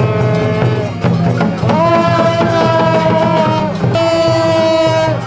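Brass band with a slide trombone playing in the street, holding long notes, one scooping up into pitch partway through, over a steady low beat.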